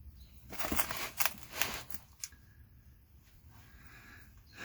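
Plastic body-filler spreader scraping and smearing muffler cement onto a split muffler seam: a handful of short scrapes in the first two seconds.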